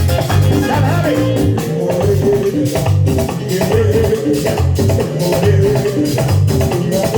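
Merengue band music with a steady driving beat: bass pulse, shaken percussion and a melody line, with no singing.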